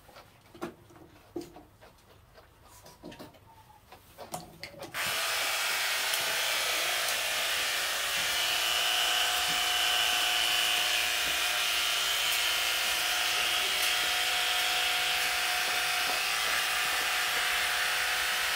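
An electric grooming appliance's motor switches on suddenly about five seconds in and then runs steadily, a loud even whir with a hiss, after a few seconds of faint clicks and taps.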